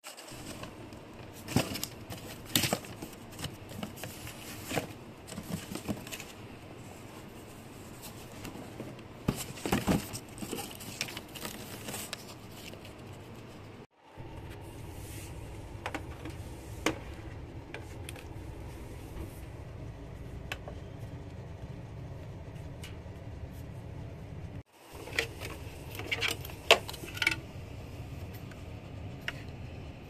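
Hands handling a cardboard box and a plastic APC Back-UPS unit: scattered clicks, knocks and rustles over a steady low hum, the sound breaking off briefly twice.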